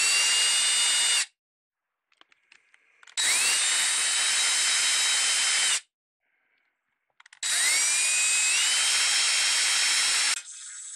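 Small electric drill boring shallow holes into a square wooden dowel rod. It runs in three bursts of a few seconds each, its whine rising in pitch as the motor comes up to speed and then holding steady.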